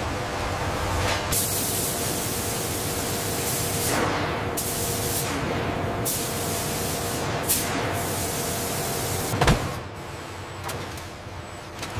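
Robotic factory machinery: a steady hiss like spraying air, with several sweeping whooshes, then a sharp clank about nine and a half seconds in, after which the sound drops to a quieter hum.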